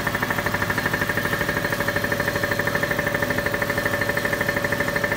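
Woodworking machine line running idle on test, its motors and belt conveyor giving a steady hum with a rapid even pulsing, about ten beats a second, and a high steady tone over it.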